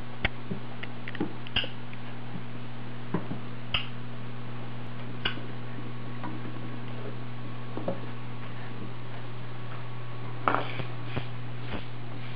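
Scattered light taps and knocks from a baby's hands patting a wooden floor and tabletop and plastic maracas bumping on the table, with a brief louder cluster of knocks about ten seconds in, over a steady low hum.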